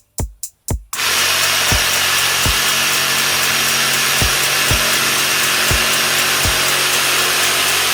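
Power saw cutting plastic pipe: a steady, loud run of cutting noise that starts about a second in, after a choppy stop-start stretch. Background music with a deep thudding beat plays over it.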